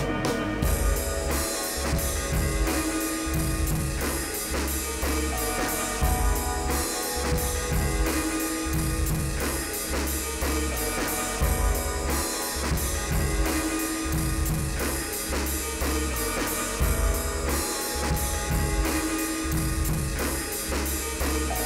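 Instrumental rock music with a drum kit keeping a steady beat under bass and guitar.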